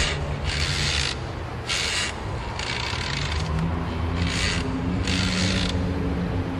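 Horror sound effect: a low droning hum under a series of about six short, harsh scraping strokes, each lasting under a second and spaced irregularly.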